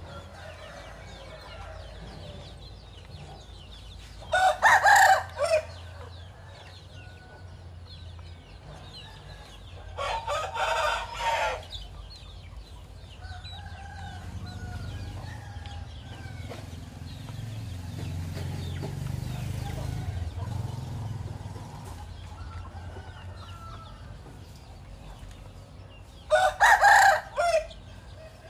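Rooster crowing three times, well spaced apart, each crow about a second and a half long; the middle crow is softer than the other two.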